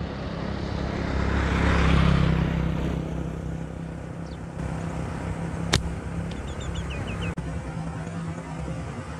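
Road traffic: a vehicle passes, loudest about two seconds in, over a steady low engine hum. A single sharp snap comes a little past halfway, and a few short, high bird chirps follow near the end.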